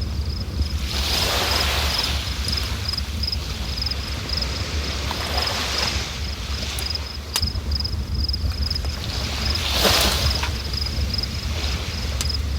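River water rushing steadily with a deep rumble and three swells of louder hiss, while a cricket chirps in an even, steady rhythm throughout.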